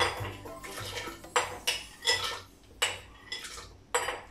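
A spoon clinking and scraping against a blender jar as soaked almonds are tipped in: about nine separate sharp clinks with short pauses between them.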